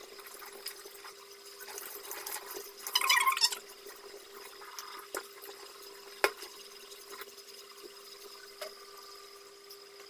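Tap water running into a stainless steel sink while small fish are rinsed by hand. There is a brief louder burst about three seconds in and a sharp knock about six seconds in.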